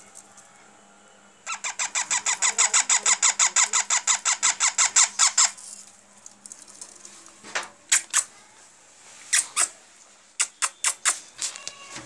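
Baby parrot chick giving rapid, repeated begging squawks, about nine a second for some four seconds. After a pause come a few shorter bursts of calls, the last a quick run of about six.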